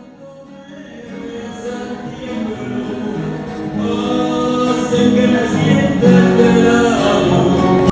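Background music: a sung song, with held vocal notes growing louder and cutting off suddenly at the end.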